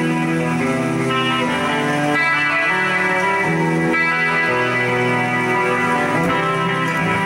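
Epiphone Les Paul Limited Edition Special I electric guitar played through a Boss eBand JS-10 effects processor, sustained chords and notes changing every second or so.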